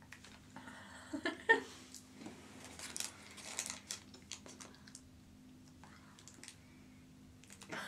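Quiet chewing of chewy cola-flavoured candy: soft mouth clicks and smacks, with a brief murmur about a second and a half in.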